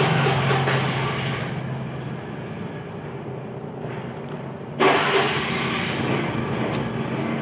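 A small engine running steadily, fading away over the first two seconds. About five seconds in, a louder rush of engine noise starts suddenly and holds.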